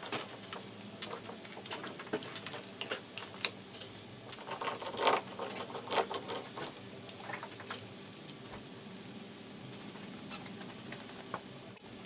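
Greyhound chewing a raw meaty bone: irregular crunches and clicks of teeth on bone, thickest about halfway through and sparser after that.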